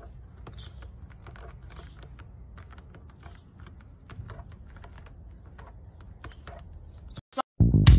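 A cat chewing on something hard: many small, irregular crunching clicks over a low steady rumble. Loud music cuts in near the end.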